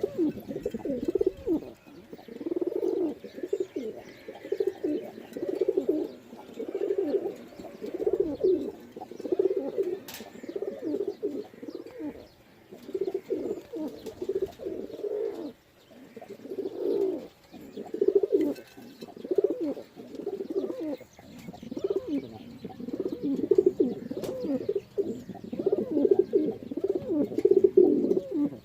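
Pigeons cooing: low rolling coos repeating every second or two.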